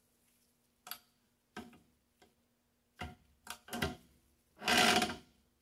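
Steel parts of a belt grinder kit being handled and fitted: a series of sharp metal clicks and knocks, then a longer, louder scrape near the end.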